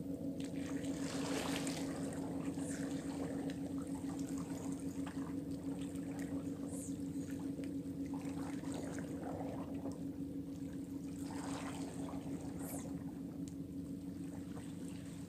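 Sea water gently lapping and trickling against shoreline rocks, with a steady low hum running underneath.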